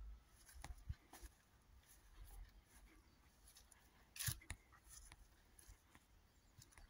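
Near silence: faint outdoor ambience with a few scattered faint clicks, one a little louder about four seconds in.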